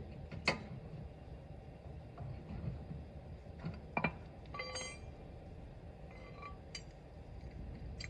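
Scattered metallic clicks and clinks of a wrench on a car wheel's lug nuts, with a short ringing clink about halfway through.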